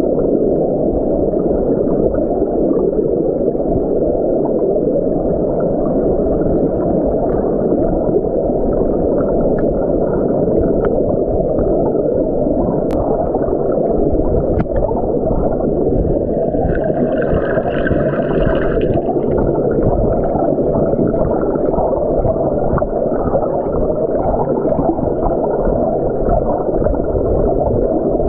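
Stream water heard with the microphone underwater: a steady, muffled low rush. About two-thirds of the way through, a brief higher hiss rises over it for a couple of seconds.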